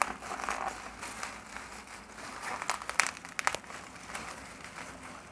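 Plastic bubble wrap being handled and crumpled by hands around a cardboard box, a steady crinkling rustle with a few sharp crackles about halfway through.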